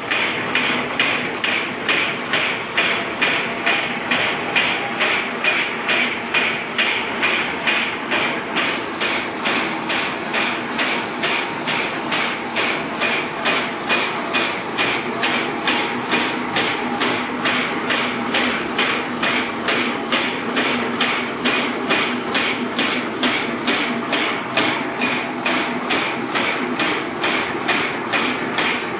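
Automatic barbed wire making machine running: an even, rhythmic metallic clatter of several strokes a second over a steady motor hum as it twists the wires and wraps the barbs.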